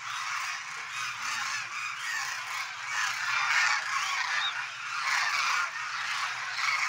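A large flock of demoiselle cranes calling in flight overhead: many overlapping calls blend into a dense chorus, which grows louder about three seconds in.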